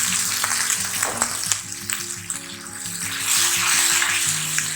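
Onion and spice masala sizzling in hot oil in a pan just after hot water has been poured in, with a few sharp clicks around the first and second seconds. Background music plays over it.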